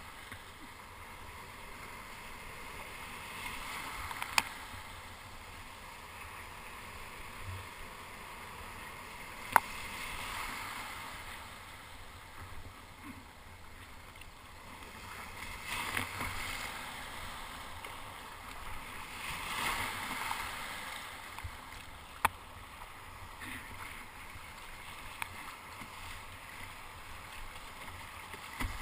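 Broken surf and foam rushing and gurgling around a kayak being paddled, with the noise swelling a few times as waves wash past. Three sharp clicks stand out, at about 4, 10 and 22 seconds in.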